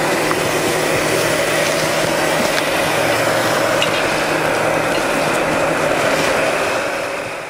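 Electric flocking applicator running with a steady, even whoosh and hum as flock is sprayed onto the mannequin, fading away near the end.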